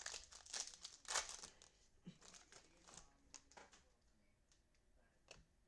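Faint crinkling and tearing of a foil trading-card pack wrapper being torn open, loudest about a second in, then a few light clicks of cards being handled.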